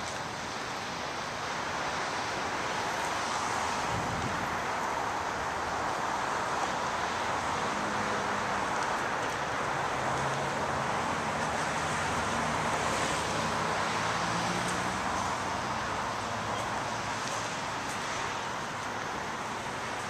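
Steady outdoor background noise of distant road traffic and wind, with faint engine hums that drift in pitch through the middle.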